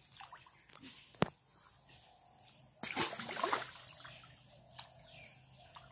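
Shallow pond water splashing and trickling as a fishing net is gathered up by hand. A single sharp click comes about a second in, and a louder stretch of splashing follows a little before the middle.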